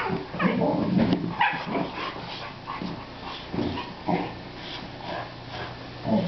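Boxer dogs play-wrestling, making a run of short barking and whining vocal sounds, busiest in the first second or so.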